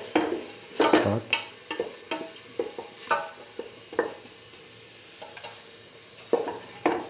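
A utensil scraping and knocking against a steel pan as tomato pieces are stirred into frying beetroot paste and shallots, over a steady sizzle. The knocks come irregularly, thickest in the first seconds, with a lull before a few more near the end.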